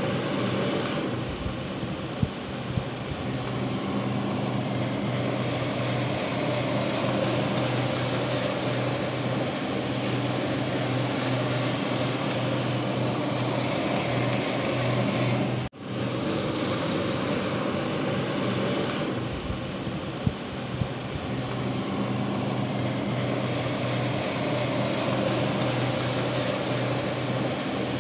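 Single-disc rotary floor polisher running steadily, its motor humming as the pad turns on the floor, with a brief break about halfway through.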